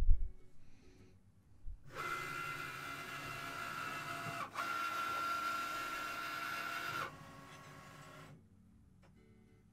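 Cricut Maker cutting machine running a test cut: its motors whine steadily as the mat feeds and the blade carriage travels, with a brief break about halfway. The whine stops about seven seconds in, leaving a fainter hum for another second.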